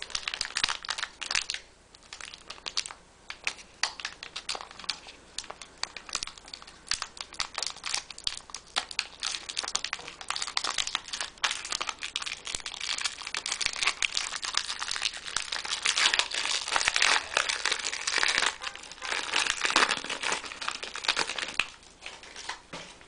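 The crinkly wrapper of an old SkyBox basketball card pack being worked and torn open by hand. It makes rapid, irregular crackling and rustling that dies down near the end.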